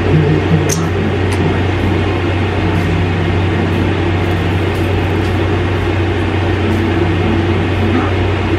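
Steady low hum with an even rushing whoosh from a window air conditioner running, with a few faint ticks in the first second or so.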